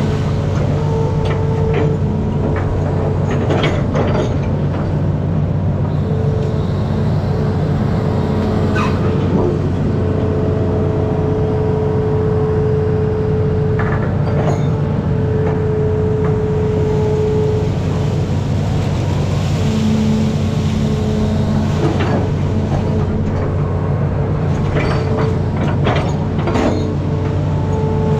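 Amphibious excavator's diesel engine running steadily, with a higher hydraulic-type whine that comes and goes and a few short knocks and clanks as it works.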